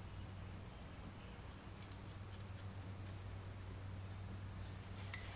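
Faint, scattered clicks of a metal air-hose fitting being handled as a quick Schrader tyre chuck is attached to it, over a low steady hum.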